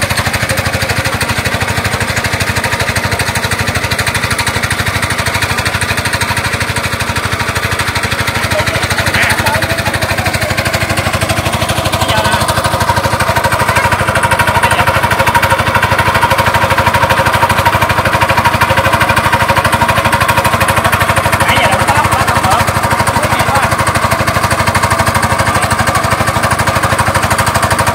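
Small engine of a water pump running steadily with a fast, even chugging, pumping water out of a pond. It gets a little louder about halfway through.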